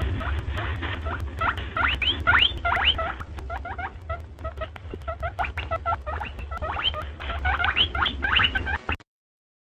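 Rabbit squeaking in a rapid series of short, rising squeaks, several a second, over a steady low hum; it all cuts off abruptly near the end.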